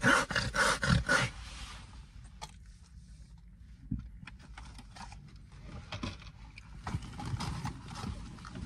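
People laughing hard in quick, breathy bursts for the first second or so, then trailing off into quieter, scattered giggles and breaths that pick up again near the end.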